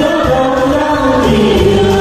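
A mixed group of men and women singing a song together through microphones over amplified backing music with a bass line.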